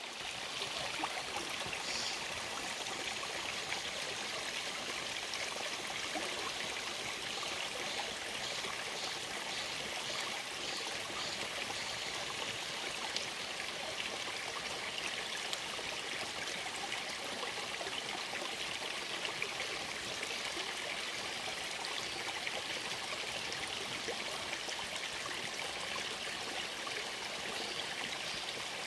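Stream water flowing and trickling steadily.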